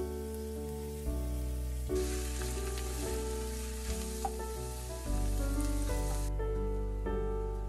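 Food frying and sizzling in a pan over background music. The sizzle starts about two seconds in and cuts off abruptly about six seconds in.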